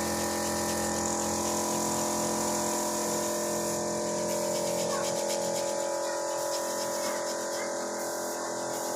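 A small electric motor humming steadily, with a buzz of several steady tones that holds unchanged.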